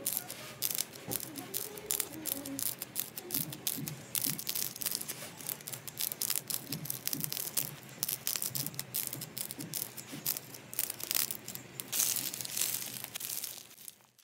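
Blue and purple clay slime balls, their surfaces drying and cracked, being pressed and squished by fingers, giving dense, irregular crackling and popping.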